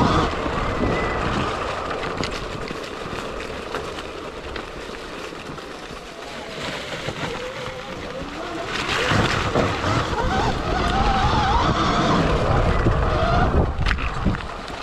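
Sur-Ron electric dirt bike being ridden off-road: its motor whine rises and falls with the throttle over the rumble of wind buffeting the microphone. It eases off a few seconds in and gets louder again about nine seconds in.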